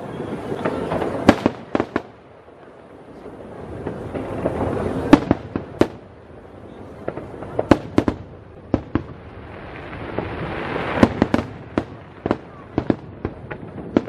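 Aerial firework shells bursting in a long irregular series of sharp bangs, some much louder than others, with swelling rushing noise that builds between the bursts.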